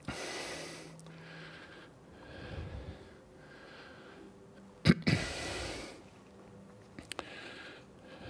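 A man breathing close to a clip-on microphone, a series of soft breaths about a second or two apart. About five seconds in comes a sharp click, the loudest sound, followed by a stronger breath, with a couple of small clicks near the end.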